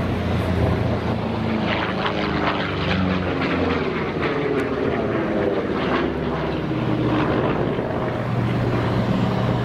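Republic P-47 Thunderbolt's Pratt & Whitney R-2800 radial engine running at high power as the fighter passes low and pulls up into a vertical climb. Its note slides down in pitch around the middle as it goes by.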